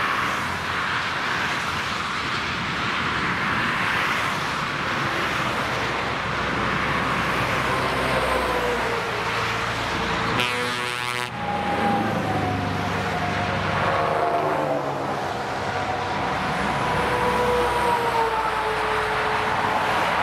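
Motorway traffic passing close by: a steady rush of tyre and engine noise from cars, then heavy trucks with open exhaust pipes going past, their engine tones falling in pitch as they pass and pull away.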